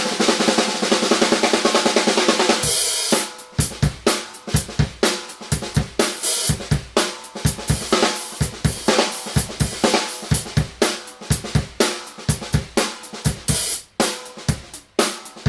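Drum kit groove built around a Mapex Black Panther Fastback 12x7 six-ply maple snare tuned high. It opens with a dense snare roll for about two and a half seconds, then settles into a steady beat of bass drum, snare, hi-hat and cymbals.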